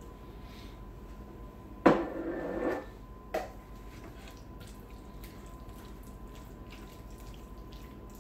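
A sharp knock against the mixing bowl about two seconds in, with most of a second of clatter after it, then a lighter knock. After that comes faint wet stirring of chunky pot pie filling with a spatula.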